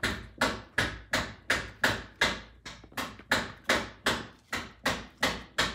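A hammer struck in a fast, even rhythm, nearly three blows a second, each blow sharp with a short ring, stopping just before the end. It sounds like household repair work.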